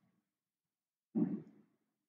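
Dead silence from a gated microphone, broken about a second in by a short half-second sound of a man's voice.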